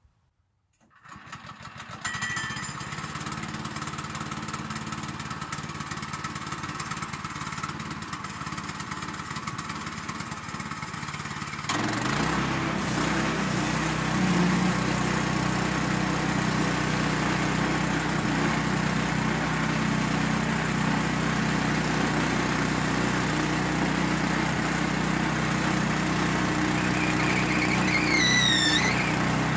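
Small gasoline engine of a Woodland Mills HM122 portable bandsaw mill starting about a second in and running steadily at a low speed, then throttled up about twelve seconds in to a louder, steady run. A short rising-and-falling whistle sounds near the end.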